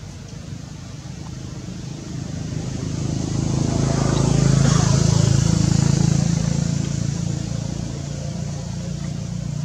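A motor vehicle driving past: a low engine hum grows louder to a peak about halfway through, then fades away.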